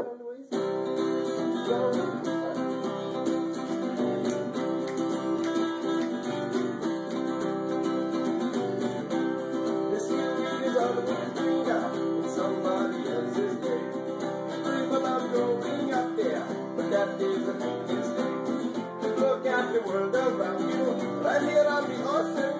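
Two guitars, one of them a steel-string acoustic, playing a tune together with strummed chords and picked notes, starting about half a second in.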